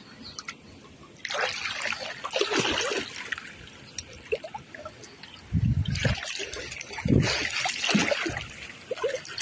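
Shallow, muddy stream water splashing and trickling as it is stirred by hand and a mesh fishing net. The splashing comes in bursts, about a second in, around the middle and near the end, some with low thuds.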